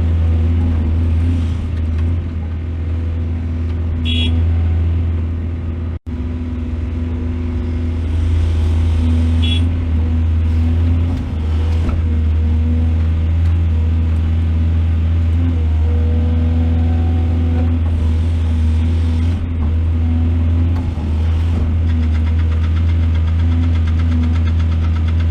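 Heavy diesel engine of an excavator running steadily at an even pitch, with two short high ticks and a momentary dropout about six seconds in.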